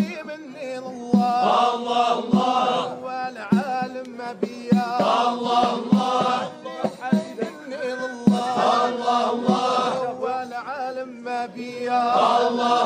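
Men singing a Moroccan devotional chant in Darija, a lead voice carried by the group, over a low beat struck about once a second.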